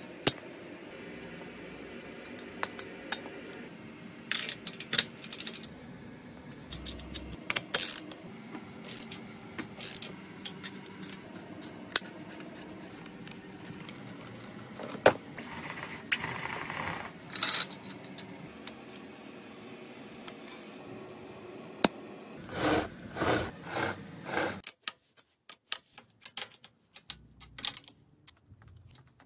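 Metallic clinks, taps and jangles of hand assembly work on a motorcycle: the links of a roller drive chain rattling as it is handled, and tools and parts clicking against metal. A quick run of louder rattles comes near the end, and a steady background hum cuts off shortly after.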